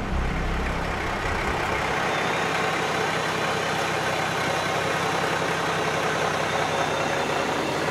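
A truck running steadily, an even engine noise with a faint hum.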